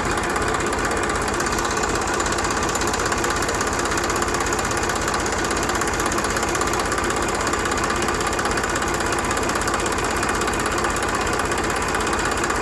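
Small tractor engine running steadily at a constant speed.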